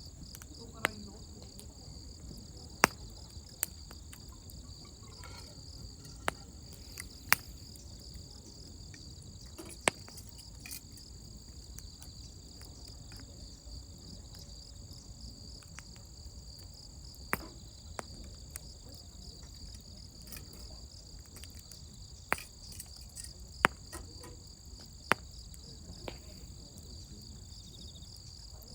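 Wood burning in a campfire, giving a dozen or so sharp crackling pops at irregular intervals, over a steady high-pitched insect chorus.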